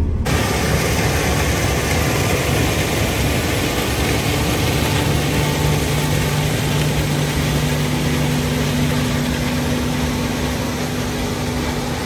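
Claas Trion 740 combine harvester running while harvesting corn: a steady mechanical rush of engine, threshing and header, with a low engine hum that grows stronger about a third of the way through.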